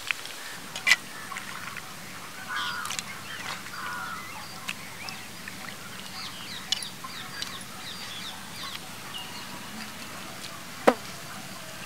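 Outdoor ambience of birds chirping and chickens clucking, with two sharp knocks: one about a second in and a louder one near the end.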